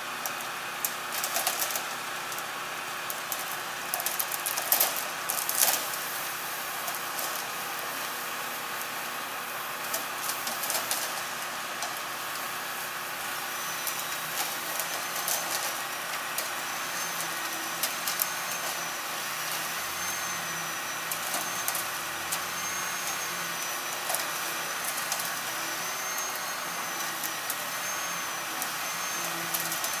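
Mack Granite concrete mixer truck running steadily while its drum discharges concrete down the chute, with sharp scraping knocks of shovels in wet concrete in the first few seconds. A faint wavering high whine comes in about 13 seconds in.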